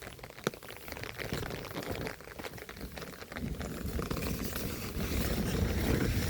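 Rain pattering as many small drop taps, with one sharp tap about half a second in. From about three and a half seconds a louder, lower rush joins in and stays.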